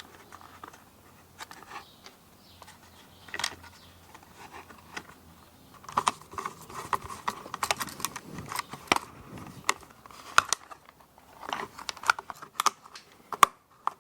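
Irregular clicks, taps and light scrapes of small screws, a screwdriver and a Kydex holster with its aluminium strut being handled while fitting softloops. The clicking is sparse at first and gets dense about halfway through.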